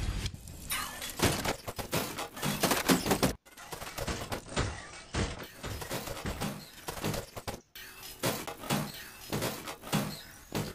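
Rapid run of metallic clanks, clicks and snaps: Iron Man-style armour suit-up sound effects. The sound cuts out briefly about a third of the way in and again about two thirds of the way in.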